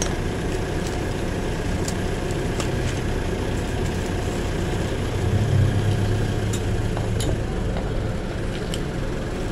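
A steady low mechanical drone, like a machine or engine running, which swells briefly about halfway through, with a few faint ticks over it.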